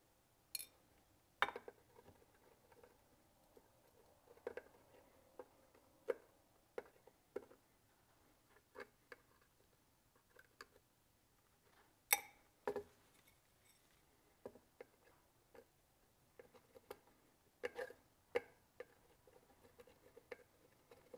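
Faint, irregular clicks and taps of tweezers touching a clear container and a small dish as gold flakes are picked out of black sand. The sharpest tick comes about twelve seconds in.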